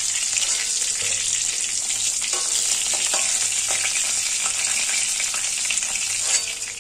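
Hilsa fish heads frying in hot mustard oil in a metal wok: a steady sizzling hiss, with a few scrapes of a metal spatula on the pan as the pieces are lifted out. The sizzle fades out near the end.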